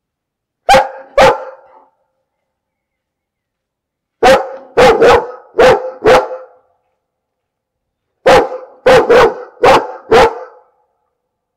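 A dog barking in three bouts: two barks, then two quick runs of about five barks each, with silent pauses between the bouts.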